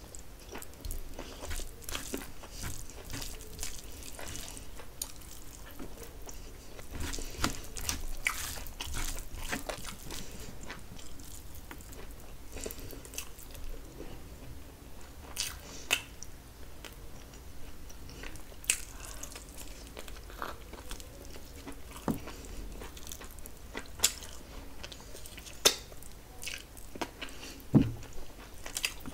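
Close-miked chewing and biting of mutton biryani and chicken curry eaten by hand, with frequent short wet mouth clicks and a few louder ones in the second half.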